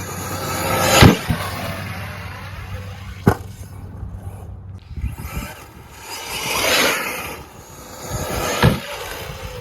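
Traxxas Sledge RC monster truck's brushless electric drive whining as it speeds up and slows down, with sharp landing impacts about a second in, at about three seconds, and near the end.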